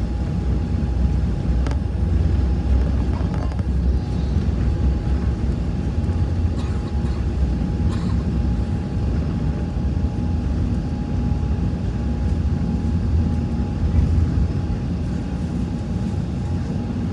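Airliner cabin noise during the takeoff run: a steady, loud low rumble of engines and runway with a thin steady whine above it.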